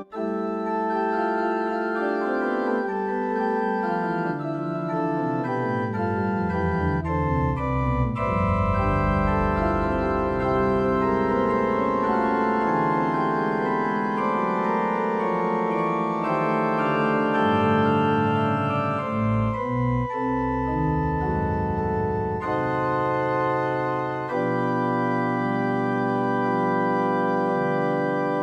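Electronic organ playing an improvised piece in slow, held chords. Inner voices step downward over the first several seconds, and deep bass notes come in about eight seconds in and carry on under the chords.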